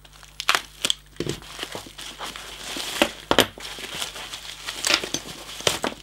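Packaging crinkling and rustling as a small wrapped parcel is handled and opened, with scattered sharp clicks and knocks, the loudest about three seconds in.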